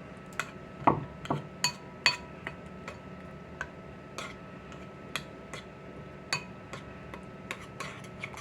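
A metal spoon clinking and tapping against a bowl as thickening cranberry sauce is stirred and mashed, in irregular, uneven strikes, the loudest about a second in.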